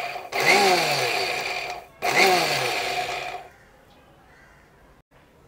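Electric mixer grinder with a small stainless steel jar, pulsed on and off to coarsely grind roasted dry coconut and cumin. The motor whirrs in short bursts of about a second and a half, its pitch sliding down in each: the end of one burst, then two more, stopping about three and a half seconds in.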